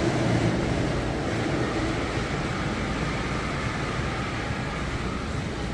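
Steady outdoor ambient noise: a dense, even rumble of traffic and surrounding crowd.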